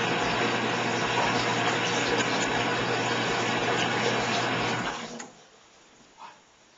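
Steady rush of running water in a bathtub with a low hum under it, which stops abruptly about five seconds in.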